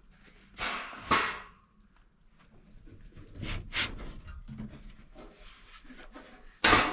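Several sharp knocks and clunks of things being handled: two about a second in, two near four seconds in, and a louder one at the end.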